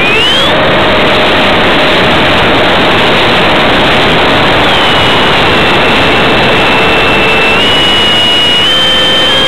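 Multiplex EasyStar's electric pusher motor and propeller whining in flight under heavy wind rush on the onboard camera. The whine glides sharply up in pitch at the start, drops a little about five seconds in, and steps up twice near the end as the throttle changes.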